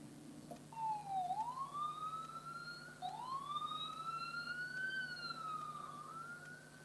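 Ambulance siren wailing in long, slow sweeps, its pitch rising twice and then falling slowly near the end.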